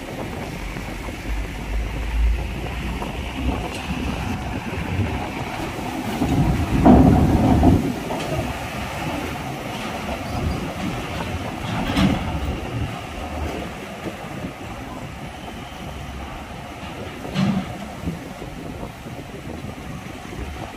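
Heavy dump truck's diesel engine running low as it crawls across the steel loading ramp onto a ferry, with a steady rumble from the ramp plates, a louder surge about seven seconds in, and sharp metal clanks around twelve and seventeen seconds in.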